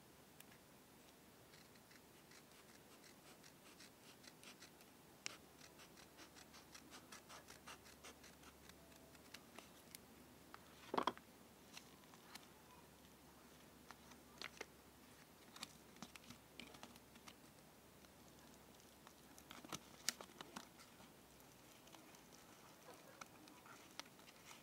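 Faint scratching and crinkling of a yellow padded bubble-mailer envelope being handled and picked at by fingers to open it. There is a run of quick small ticks and scattered sharper crackles, the loudest about eleven seconds in.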